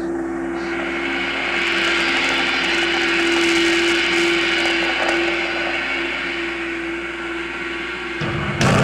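Droning intro of a black/thrash metal track: a held tone under a swelling rushing noise, like a roar, with the full band crashing in loudly near the end.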